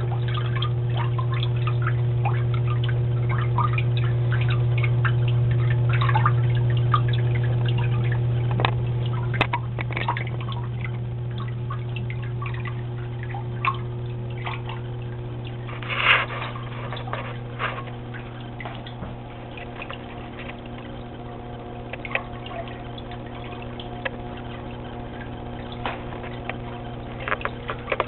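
Water trickling and dripping in a large fish tank over a steady low hum, with a louder short noise about sixteen seconds in.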